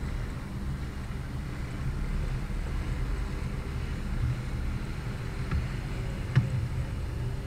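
OO gauge model diesel multiple unit running on the layout: a steady low rumble, with two sharp clicks near the end.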